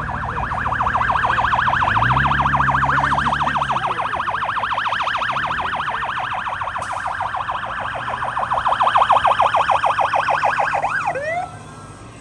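Fire apparatus electronic siren on a fast yelp, rapidly sweeping up and down, ending about eleven seconds in with a short sweep before cutting off abruptly. Under it, a truck's diesel engine rises and falls in pitch as it passes early on.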